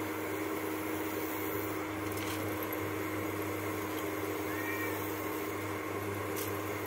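Steady electrical hum with a constant tone and fan whir from an induction cooktop heating a stainless steel kadhai, with faint light rustles and taps as grated dry coconut goes into the pan and is turned by hand.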